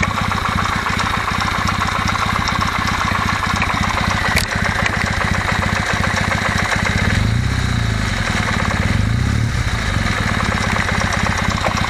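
Kawasaki W650 air-cooled parallel-twin engine idling warm, with a rhythmic tapping knock, "tok-tok-tok", from the camshaft drive. The knock appears only once the engine reaches operating temperature. The owner has ruled out the valves and suspects the mesh between the driving and driven bevel gears of the camshaft drive.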